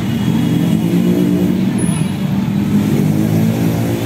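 Motorcycle and car engines running close by in slow, busy street traffic.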